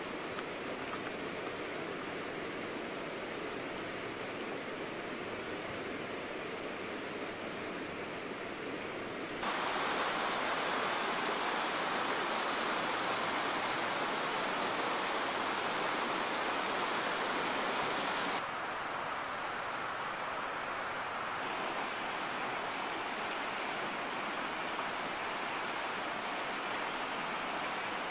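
Insects trilling in one steady, unbroken high-pitched tone over a constant rushing hiss. The background changes abruptly twice, about a third and two thirds of the way through, getting louder each time.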